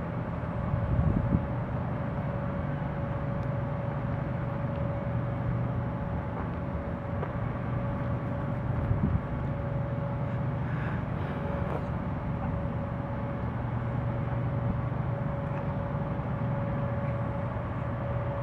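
Distant jet airliner engines running, a steady low rumble with a steady mid-pitched whine, and brief louder bumps about a second in and again around nine seconds.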